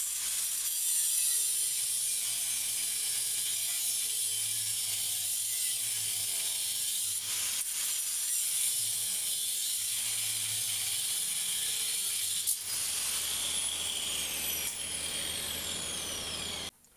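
Hand wrench clicking steadily as the new U-bolt nuts are run down on the rear leaf-spring plate of a 4-inch lift kit. The sound cuts off suddenly near the end.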